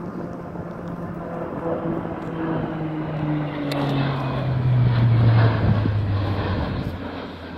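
Bombardier Q400 twin-turboprop airliner flying past overhead: its propeller drone grows louder to a peak about five seconds in, the pitch falling steadily as it passes, then fades a little.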